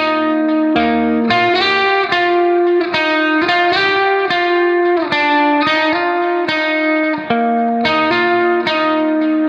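Background music: a melody of plucked, guitar-like notes that change about every half second, running steadily.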